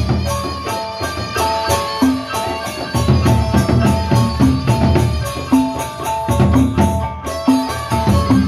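Sasak gendang beleq ensemble playing: large two-headed barrel drums beaten by hand and stick under a fast, steady clash of small hand cymbals, with a repeating melody of pitched bronze notes and low gong strokes.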